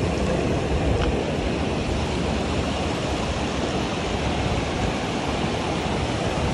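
Fast mountain river rushing over rocks and boulders: a steady, unbroken rush of white water.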